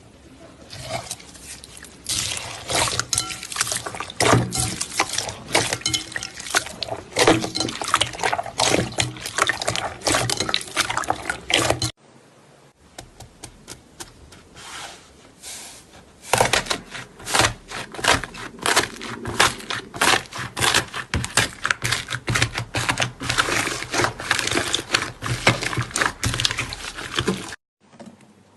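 Slime being squeezed and worked by hand, giving a dense run of wet clicks, pops and squelches. The sound breaks off abruptly about twelve seconds in, then resumes and builds again.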